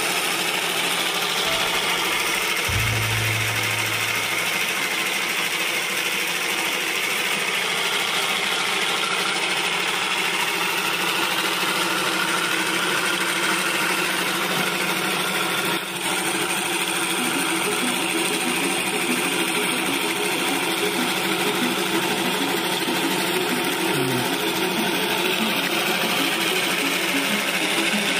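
Homemade syringe twin-cylinder model engine and its small DC motor running steadily, a continuous mechanical whir and rattle. A faint regular beat comes through in the second half.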